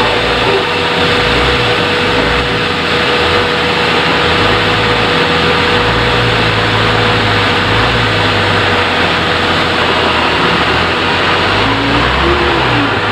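Sawmill machinery running loudly and steadily, a constant whine over a low, shifting mechanical drone.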